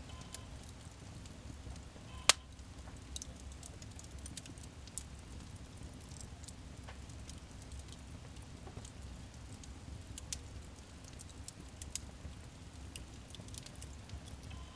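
Wood fire burning in a fireplace, crackling with scattered small pops and one sharp, loud pop about two seconds in, over a low steady rumble.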